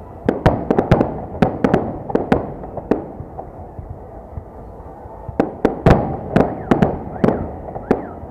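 Fireworks salute: a rapid series of sharp bangs in two volleys, one in the first three seconds and another from about five seconds in, with a lull between.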